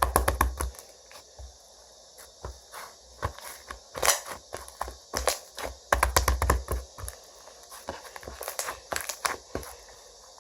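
Slime being squished and stretched by hand, giving bursts of crackling clicks and pops, with a couple of low thuds at the start and about six seconds in.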